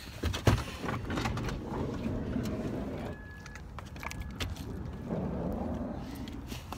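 A minivan door opening and a person climbing out, with scattered clicks, knocks and rustling from handling. Two short faint beeps come about three and four seconds in.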